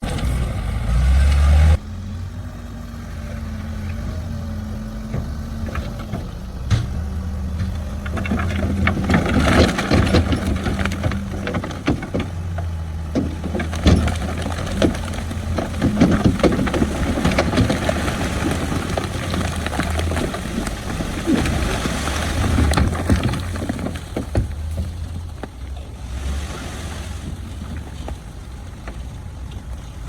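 Bulldozer's diesel engine running under load, a steady low rumble, with the clanking, knocking and scraping of rock being pushed. The rumble is heavier for the first couple of seconds, and the knocks come thickest in the middle.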